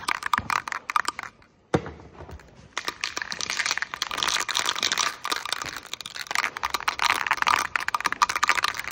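Aerosol can of primer being shaken, its mixing ball rattling rapidly, with a short pause and a sharp click about two seconds in.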